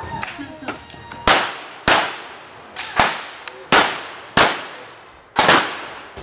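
Revolver firing blanks: about six loud, sharp shots at uneven gaps of half a second to a second, each ringing out in a long echo, with a few fainter pops in between.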